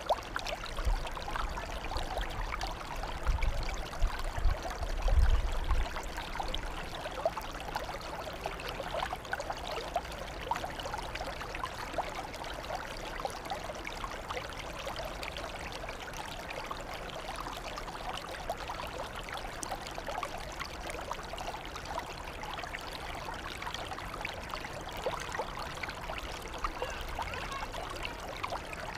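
Water trickling and flowing in a flooded rice paddy, a steady stream of small splashes, with some low rumbling during the first few seconds.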